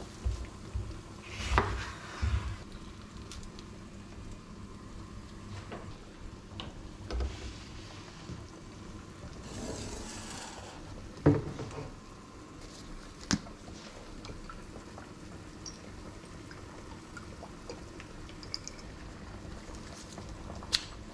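Kitchen prep handling sounds: a chef's knife cutting through a lemon on a bamboo chopping board, then scattered sharp knocks and clatter as utensils and the steel salad bowl are handled, over a steady low hum.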